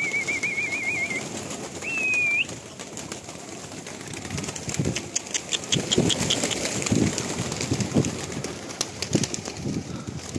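Domestic pigeons flapping their wings and cooing as they crowd in to feed, hungry. Two high warbling whistles sound in the first couple of seconds.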